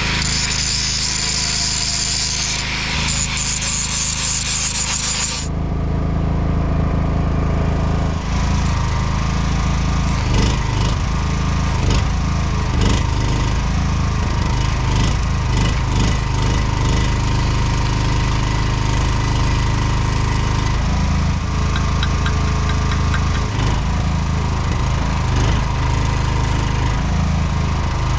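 Arc of a small stick welder crackling and sputtering during vertical-up welding, with a steady low hum underneath from about five seconds in.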